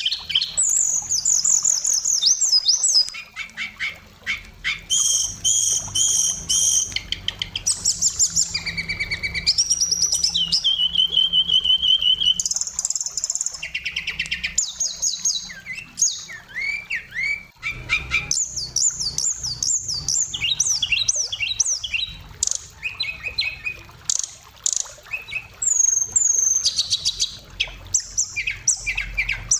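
Oriental magpie-robin (kacer) singing a long, varied song of rapid trills, whistled up-and-down glides and quick repeated notes, with short pauses between phrases.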